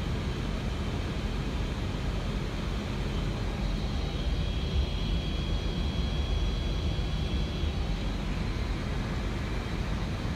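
Steady in-flight cockpit noise of an Airbus A320 on approach: a constant rush of airflow and engine rumble, strongest in the low end. A faint thin high whine comes in for a few seconds in the middle.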